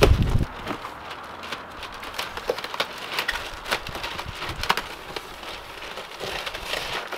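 Plastic film and cardboard packaging crackling and rustling as a box is cut open with a utility knife and the wrapping pulled back from a new slam panel, in many small irregular crackles. A loud low rumble fills the first half second.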